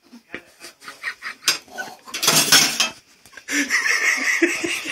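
Clinking and clattering of a metal spoon against dishes, a string of short clicks. About two seconds in comes a loud breathy puff from a man with a mouthful of dry ground cinnamon.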